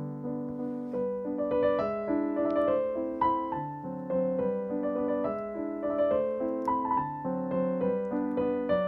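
Background piano music: a gentle melody of single notes over sustained chords.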